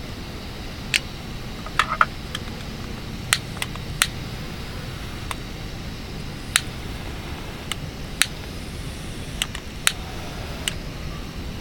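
About a dozen sharp clicks and light knocks, spaced irregularly, over a steady low background noise.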